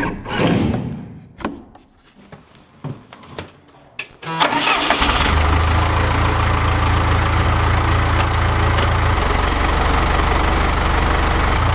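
A few light clicks and knocks, then about four seconds in a Lull telehandler's diesel engine starts and settles into a steady run.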